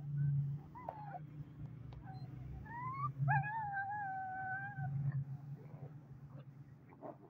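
Puppy whining while play-fighting: a rising whine about halfway through, held at a steady pitch for about a second and a half, over a low rumble.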